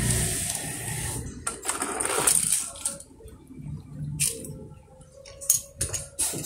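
Small toy cars rolling down a ramp, a rolling rumble over the first couple of seconds, then a few sharp clinks and taps as the cars land and knock about on the concrete.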